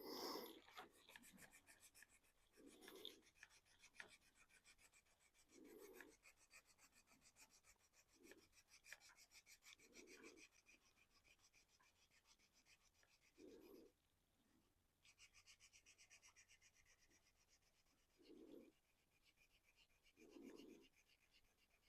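Faint rubbing on a painted 3D-printed plastic RC car body, a run of quick short strokes as the paint is worked back for weathering, with soft low bumps every few seconds from handling.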